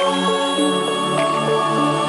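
Background electronic music: short synth notes repeating about three times a second over sustained chords.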